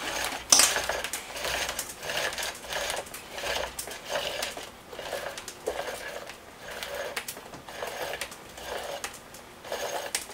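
Vinyl line being pulled out of a spring-loaded retractable clothesline reel in repeated pulls, about one to two a second, the reel's spool turning against its spring as the line pays out.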